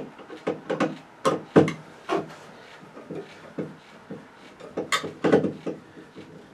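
Irregular clicks, taps and scrapes of metal on metal as a ground wire is fastened under the ground screw in a metal electrical box, with the loudest knocks about a second and a half in and again around five seconds.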